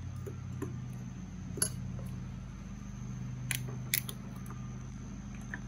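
A few sharp clicks over a steady low background hum: a spoon stirring dry flour and sugar in a ceramic bowl, then the plastic cap of a milk jug being twisted open, with two clicks close together about three and a half seconds in.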